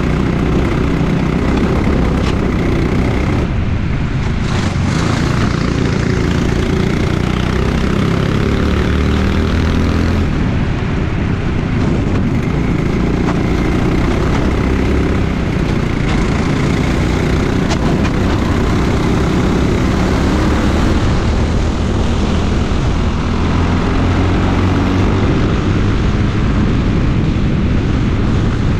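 Onboard sound of a racing go-kart's engine running hard around a track, its pitch rising and falling with the revs through the corners and straights.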